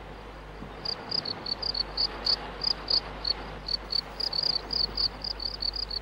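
Cricket chirping: short high chirps repeating a few times a second, over a faint steady hiss.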